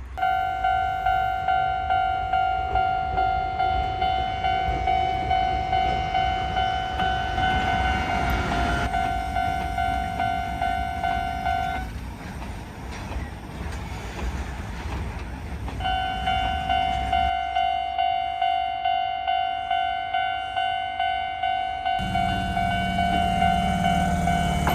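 Japanese railway level-crossing warning bell ringing its repeated electronic clang, about one and a half strikes a second, over a low rumble. The bell breaks off for about four seconds midway, then starts again, and a deeper steady hum joins near the end.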